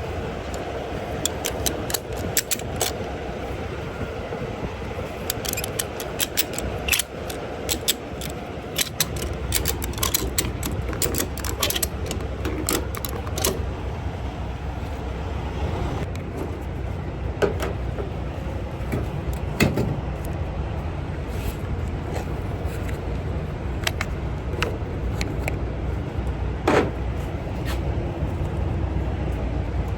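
Repeated light metallic clinks and clanks, thick in the first half and sparser later, over the steady low rumble of a vehicle running, which grows stronger about nine seconds in.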